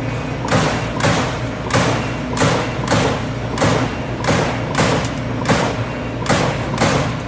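Amada Aries 245 CNC turret punch press punching sheet metal: a sharp hit about every two-thirds of a second, starting about half a second in, over the machine's steady hum.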